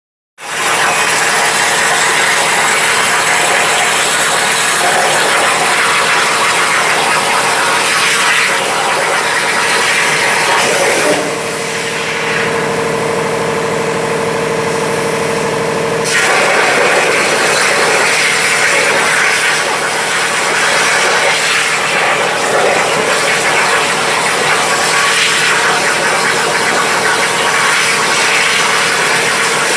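CNC plasma cutting table (MTA FineCut-1530S) cutting steel plate: the plasma torch makes a loud, steady hiss with a steady hum under it. The hiss eases for a few seconds about eleven seconds in, then returns.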